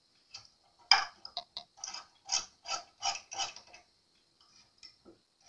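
A string of short metallic clicks, about three a second through the middle and fewer and fainter near the end, from the tuning-machine hardware on an acoustic guitar headstock being worked loose with a small hand tool.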